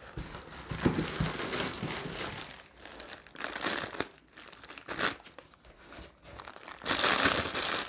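Packaging crinkling and rustling as statue parts are unwrapped and handled, with scattered small clicks; it grows louder and denser near the end.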